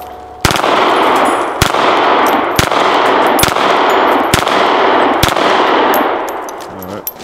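Unsuppressed VZ 61 Skorpion in .380 being bump-fired: a long, loud run of rapid shots starting about half a second in, with sharper cracks standing out about once a second, dying away near the end.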